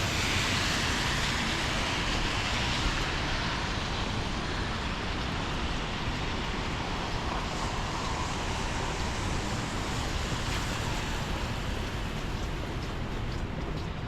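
Traffic hiss on rain-wet city streets: tyres swishing on wet pavement over a steady low rumble, loudest in the first few seconds and then settling to an even wash.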